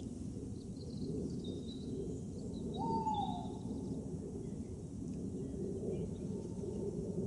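Outdoor ambience: a steady low rumble with birds calling over it, one clear falling whistled note about three seconds in and a few short high chirps.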